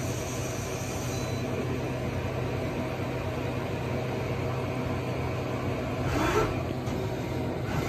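2019 Okuma Genos L3000-E CNC lathe running a chamfering cut, with coolant spraying against the inside of the door window: a steady machine hum under the hiss and splash of coolant.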